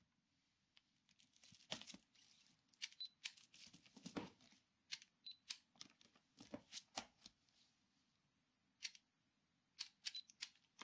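Faint handling noise from a book or magazine held and turned close to a webcam: scattered short rustles and taps at irregular intervals.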